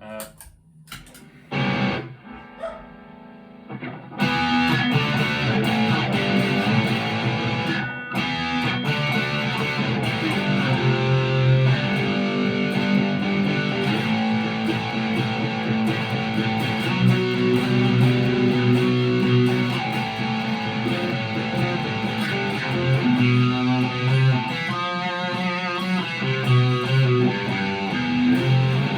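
Chapman ML3 Thinline Pro Classic electric guitar played through a Harley Benton Tube15 valve amp with mild overdrive. A few sparse notes come first; from about four seconds in, the playing turns into continuous, louder chords and riffs.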